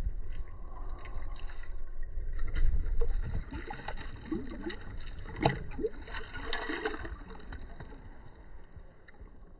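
Water sloshing and splashing in an ice-fishing hole as a large walleye is held in it and released, kicking free and swimming down. The sound fades as the water in the hole settles.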